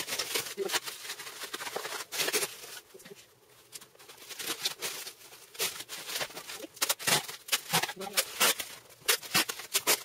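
Large-bubble plastic bubble wrap rustling and crinkling as it is pulled and wrapped around a typewriter, in irregular crackles with a brief lull about three seconds in.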